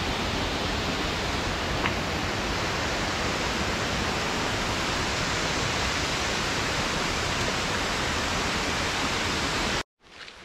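Steall Falls, a tall mountain waterfall, rushing steadily close by. It cuts off suddenly just before the end.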